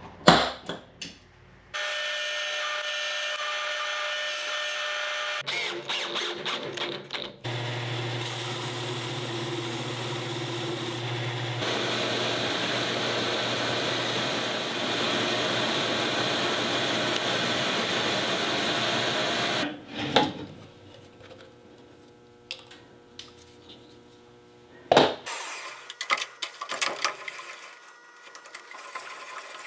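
Drill press driving a large hole saw through a thick block of ipe hardwood, a steady cut lasting about twelve seconds. Shorter runs of a power tool come before it, and afterwards the press hums more quietly, with a sharp knock and some clattering near the end.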